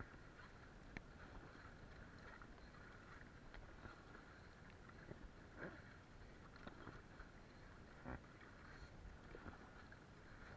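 Faint sea water lapping and splashing around an inflatable float, with a few small splashes and knocks as a bamboo pole is dipped and pushed through the water like a paddle.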